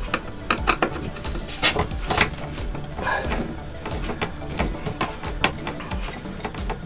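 Hand screwdriver turning a screw out of a wooden cabinet access plate: a run of small, irregular clicks and scrapes as the bit works in the screw head.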